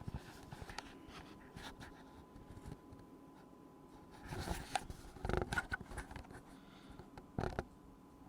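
Handling noises: light taps, clicks and scrapes of hard plastic being moved about, with a cluster of louder rustling and knocks about four to five seconds in and another brief knock near the end.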